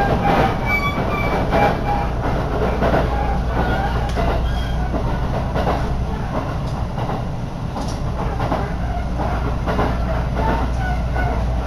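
Electric local train on the Minobu Line running at speed, heard from inside the carriage by an open window: a steady rumble and rush of air with the wheels clattering on the rails.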